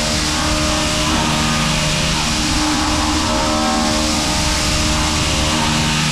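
Heller CP 6000 CNC machining centre's end mill roughing steel in a steady, loud cutting run.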